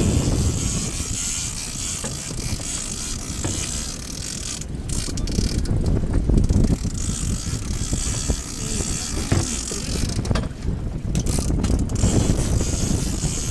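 Conventional fishing reel being cranked to haul up a hooked Humboldt squid, its gears and clicker ticking over and over, over a steady low rumble of wind and the boat.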